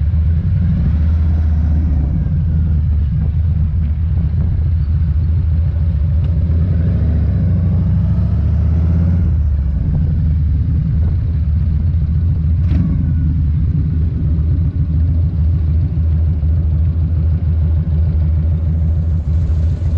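Harley-Davidson V-twin engine running under the rider at low road speed, a steady pulsing rumble that eases as the bike slows and settles to idle near the end. One sharp click comes a little past the middle.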